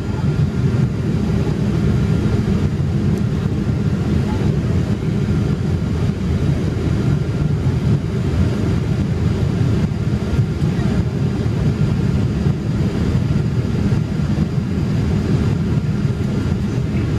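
Steady engine and airflow rumble heard inside the cabin of a Boeing 787 Dreamliner as it climbs out at low altitude, loud and even throughout.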